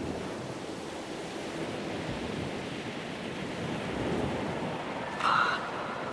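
Surf on a beach: a steady wash of breaking waves with some wind. About five seconds in, a short, louder pitched sound cuts through briefly.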